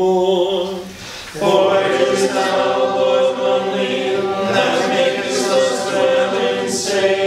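Small choir singing unaccompanied in harmony, chanting a liturgical response of the Anglican evening office. The singing drops away briefly about a second in, then comes back in on a new phrase.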